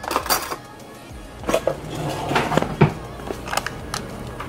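Metal cutlery clinking and rattling as a hand picks a spoon out of a plastic cutlery tray in a kitchen drawer, with a few sharp clinks spread over several seconds.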